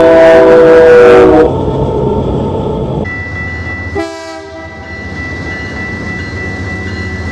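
Train horn sounding a long blast that ends about a second and a half in, followed by the rumble of the passing train. A short second horn blast comes about four seconds in, and a steady high whine runs under the later part.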